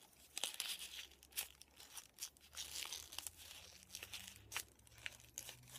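Faint crinkling and rustling of curled, die-cut paper petals as they are squeezed and pushed together around a paper carnation, with scattered small crackles. A faint low hum runs underneath.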